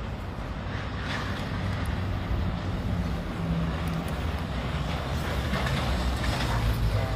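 Livestock truck loaded with pigs driving past, its diesel engine getting steadily louder as it approaches and is loudest near the end.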